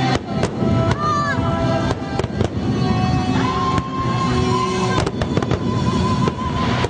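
Fireworks going off in quick succession, many sharp bangs and crackles, with music playing underneath.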